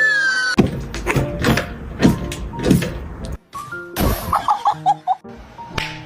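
Music with sharp knocks and quick pitched blips, including a fast run of short falling tones about four seconds in.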